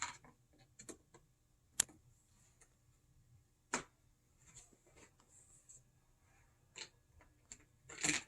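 Plastic Thomas TrackMaster track pieces being handled and fitted together: a handful of sharp clicks and clacks a second or two apart, the loudest near the end.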